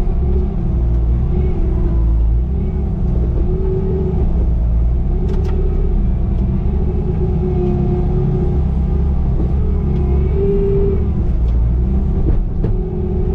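Bobcat T595 compact track loader's diesel engine running steadily at working revs, with a higher whine that wavers up and down in pitch. A few brief clicks come through.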